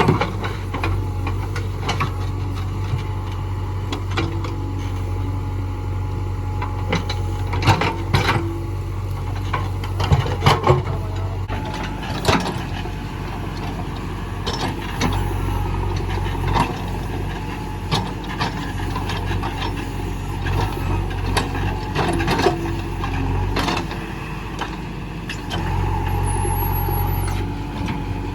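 JCB 3DX backhoe loader's diesel engine running steadily, with repeated knocks and rattles as the bucket and arm work the soil. The engine gets louder for a couple of seconds near the end.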